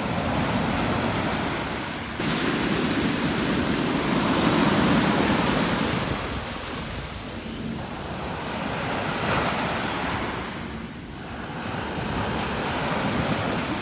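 Small surf breaking and washing up a sandy beach: a steady rush of water that swells and ebbs as each wave comes in, loudest about four to five seconds in and dropping briefly near eleven seconds.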